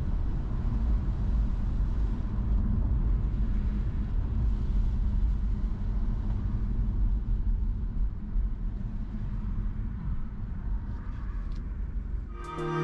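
Car driving along with a steady low rumble of road and engine noise. Music with sustained notes starts just before the end.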